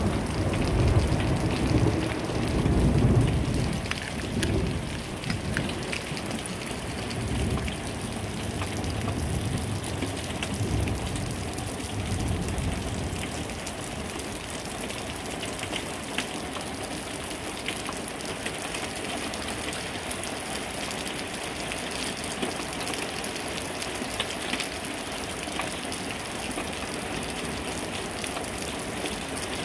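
Rain falling steadily during a thunderstorm. Thunder rumbles loudest in the first few seconds, comes back more weakly a few times, and fades out about halfway through.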